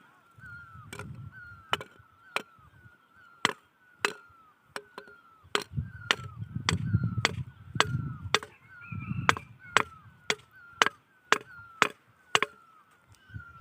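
Repeated sharp chopping strikes, about one to two a second, with a short squeak recurring between them and a low rumble now and then.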